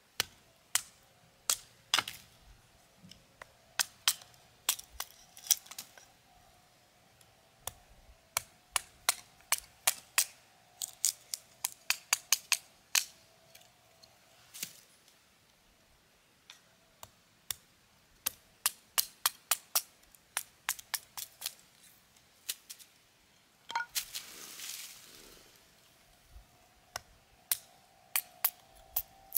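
Wood fire crackling: irregular sharp pops, sometimes several a second, with a brief hiss about a second long late on.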